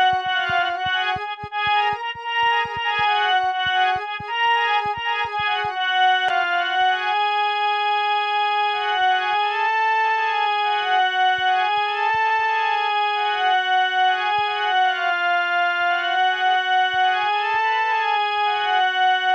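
Instrumental folk-style music: a keyboard holding a sustained melody that slides smoothly between notes, over quick light percussive ticks that are dense for the first few seconds and sparser after.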